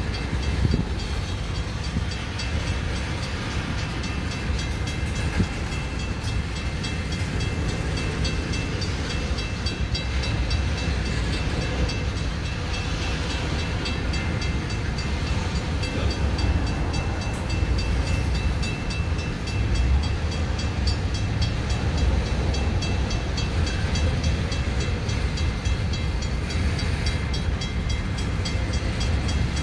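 Freight train of covered hopper cars rolling slowly past, a steady rumble of wheels on the rails.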